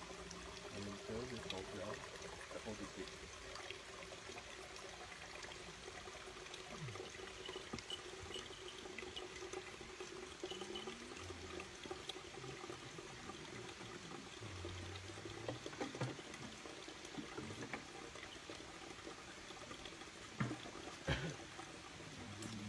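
Rainwater runoff pouring and trickling over the ground during rain, a steady rush of water. Two brief knocks come near the end.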